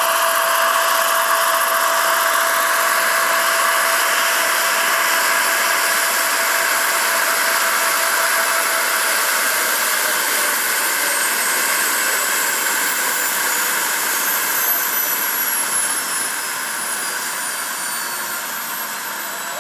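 Turbine engine of a large RC Boeing Vertol CH-46 tandem-rotor model helicopter, running with a high whine as it touches down, then spooling down: in the second half the whine falls steadily in pitch and the sound grows quieter.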